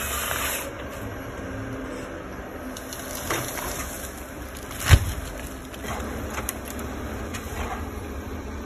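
A Ponsse forestry harvester's diesel engine runs steadily while the machine fells a pine. Almost five seconds in, the falling tree hits the ground with one heavy thump, the loudest sound here, and a few lighter cracks and knocks come before and after it.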